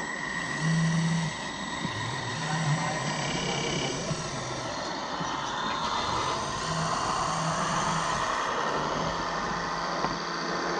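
Radio-controlled scale trucks and construction machines running: a steady mechanical running noise with a low hum that starts and stops several times.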